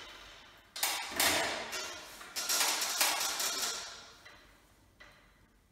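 Clattering and rattling as hand tools and small fittings are handled, in four sudden bursts in the first three seconds, then a couple of fainter clicks as it dies down.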